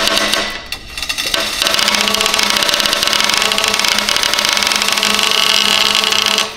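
A continuous stream of small ball bearings rattling down a tube, striking a heavy swinging plate and clattering into a plastic bin. The dense, even clatter dips briefly about a second in and stops suddenly at the end.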